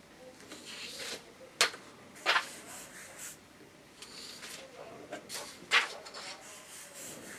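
A marker pen handled on paper: a few sharp taps, with soft scratchy rubbing between them.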